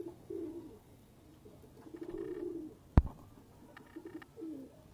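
Domestic pigeons cooing, a few low warbling coos in short phrases, with a single sharp knock about three seconds in.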